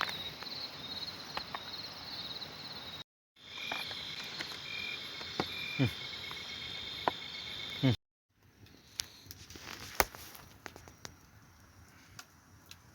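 Insects chirping and trilling in a rice field: a high pulsed chirping, then a steady high trill with a lower rapid ticking, cut off abruptly twice. After the second cut it is quieter, with scattered clicks and knocks.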